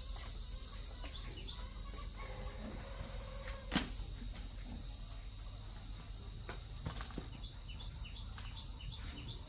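Insects chirring in one steady, unbroken high-pitched drone, with a single sharp click a little under four seconds in and a few faint ticks.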